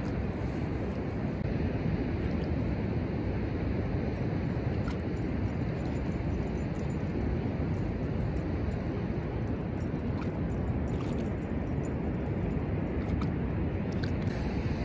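Steady rush of ocean surf mixed with wind buffeting the microphone, with a few faint light clicks.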